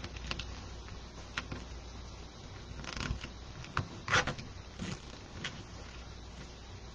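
Faint rustling and scattered light clicks of hands tucking black mesh pieces into plastic zip ties on a wreath board, with a brief louder rustle about four seconds in.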